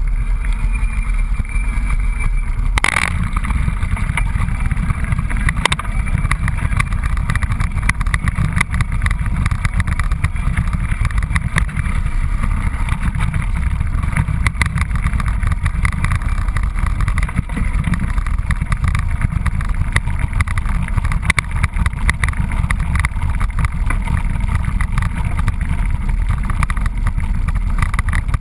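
Mountain bike riding over a trail, heard from a GoPro riding along: a steady low rumble of wind and tyres with constant small rattles and knocks, and one sharper knock about three seconds in.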